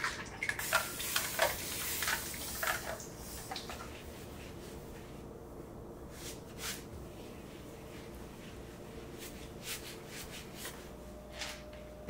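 Cloth wiping a hard stone countertop: quick swishing rubbing strokes, loudest over the first three seconds or so, then softer, sparser strokes.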